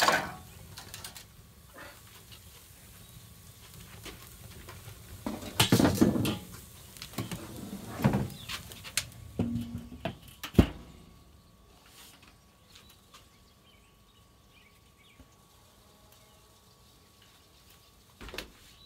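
Metal knocks and scrapes as the domed lid of a Weber Smokey Mountain smoker is handled and set back on. The loudest come about six and eight seconds in, and a single sharp knock follows near ten and a half seconds.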